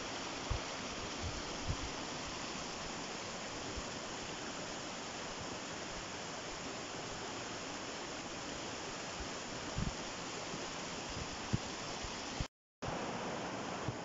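River water rushing steadily over rocks in shallow rapids, with a few short low thumps on the microphone. The sound cuts out for a moment near the end.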